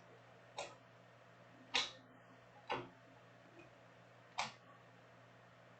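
Four short, sharp snaps of stiff chrome trading cards being flipped and set down one at a time, irregularly spaced, over a faint steady hum.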